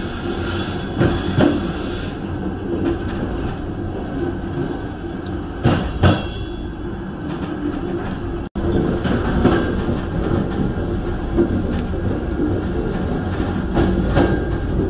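Passenger train running on the rails: a steady rumble with a few sharp clacks from the wheels. The sound drops out for an instant about halfway through, then carries on.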